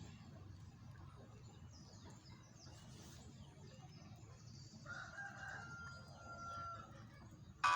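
A rooster crowing faintly once, one held call a little over a second long about five seconds in, over faint background clucking. Just at the end a loud phone ringtone starts.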